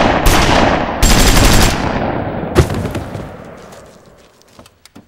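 Gunfire: a volley of rapid shots, a second quick burst about a second in, and one more sharp crack midway, then the sound dies away over a few seconds.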